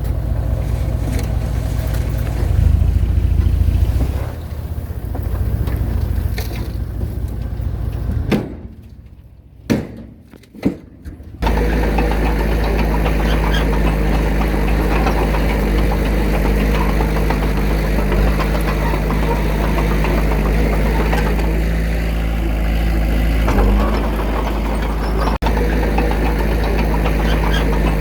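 Diesel engine of earthmoving machinery running, a loud low rumble. It drops away for about three seconds near the middle, with two short knocks in the gap, then comes back and runs steadily at an even pitch.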